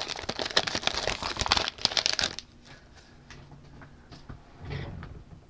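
Foil wrapper of a football trading-card pack crinkling as it is torn open, stopping abruptly about two and a half seconds in. After that only faint ticks and a soft rustle near the end remain.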